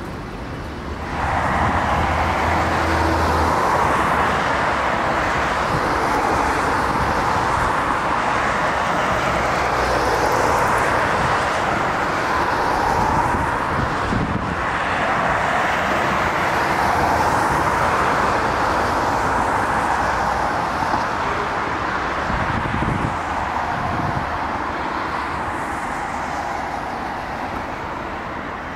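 Jet airliner on final approach passing low overhead: a loud, steady jet rush that swells about a second in, surges slowly as the aircraft passes and fades gradually toward the end.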